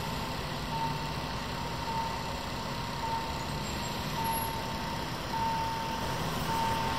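Railway level crossing warning signal sounding a single electronic beep about once a second while the barriers are down, over a steady background hiss.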